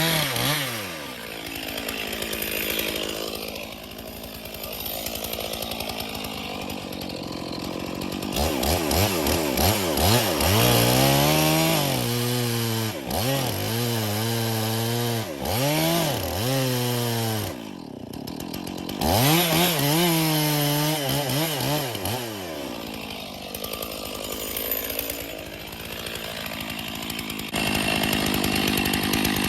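Stihl two-stroke chainsaw running at varying throttle, its engine note rising and falling again and again, with a quick run of rev-ups in the middle and a brief drop about eighteen seconds in.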